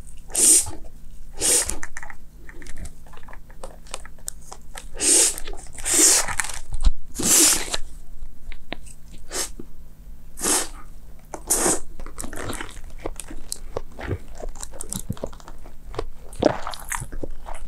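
Close-miked eating of Paldo bibim noodles with crunchy toppings: chewing and crunching with many small clicks. Several louder noisy bursts come between about five and eight seconds in, the longest about a second.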